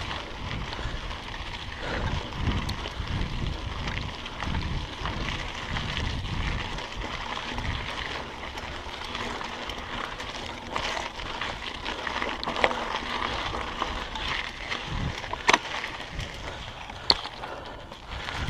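Mountain bike ridden down a dirt singletrack: tyres rolling over dirt and rock, the bike rattling, and wind rumbling on the camera microphone. There are a few sharp knocks in the second half, and the rumble eases near the end.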